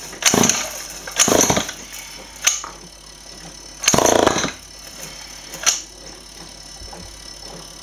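Small two-stroke engine being cranked over by hand in repeated start attempts: three short bursts of about half a second each, with two briefer sharp sounds between them, roughly one a second. It does not catch and run on its HHO (hydrogen) feed, which the owner thinks is pumping too much hydrogen.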